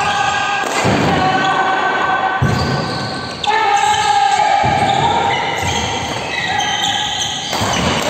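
Background music: a melody of long held notes that change pitch every second or two.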